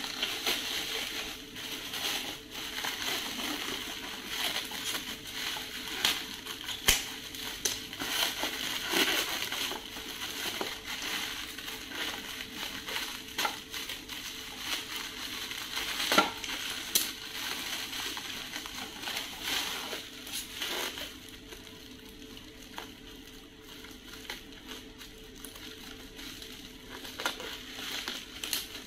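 Clear plastic packaging crinkling and rustling as it is handled and unwrapped, with scattered sharp crackles. It grows quieter about two-thirds of the way through.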